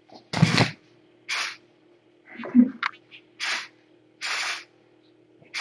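A cat right at the microphone making a series of short, breathy noise bursts, about one a second, with no pitch.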